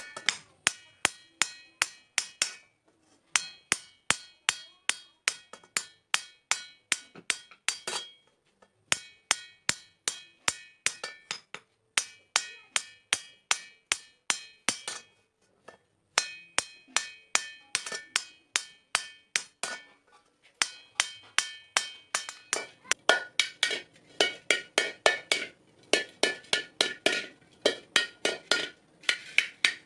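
Hammer blows on a metal kadai, rapid and even at about three to four a second, each ringing with a metallic tone. The hammering stops briefly several times and resumes, growing louder near the end.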